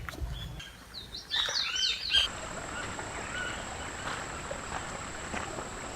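A bird calling: a quick run of repeated high, curving notes lasting about a second, starting just over a second in. It is followed by steady outdoor hiss with a few faint chirps.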